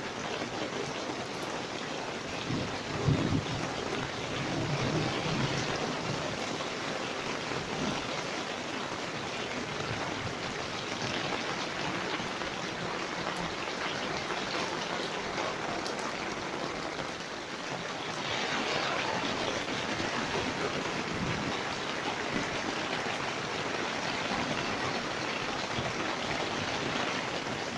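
Heavy rain falling steadily in a thunderstorm, with a low rumble of thunder a few seconds in. The rain grows heavier about two-thirds of the way through.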